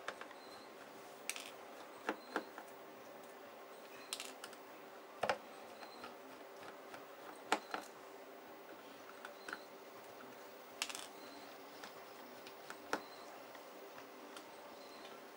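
Small screwdriver backing out the screws of a Samsung Galaxy S4's midframe: scattered light clicks and ticks of the tool and screws on the phone's housing at irregular intervals, over a faint steady hum.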